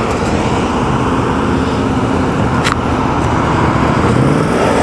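Steady road traffic: cars running along a busy street, a continuous rumble and hiss with faint engine hum. A single short click a little over halfway through.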